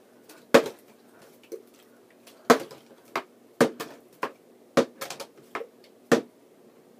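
A small plastic water bottle, partly filled, knocking down onto a wooden desk again and again as it is test-flipped and set upright: about nine sharp thuds at uneven gaps, the loudest near the start.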